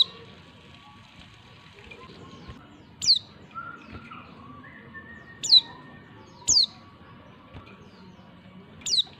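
Female white-eye (pleci) calling: about five short, high notes, each sweeping sharply down in pitch, spaced irregularly a second or more apart.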